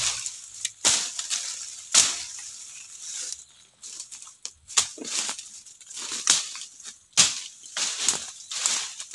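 Footsteps crunching through dry leaf litter and brushing through undergrowth, uneven, with several sharp snaps among them.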